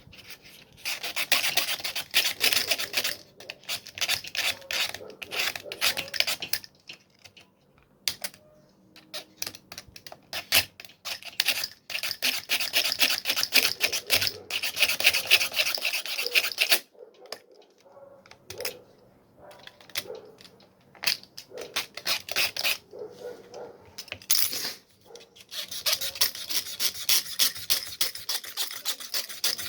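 Plastic being scraped away by hand from an angle grinder's switch parts to ease a sticking trigger: several runs of quick rasping strokes with short pauses between them.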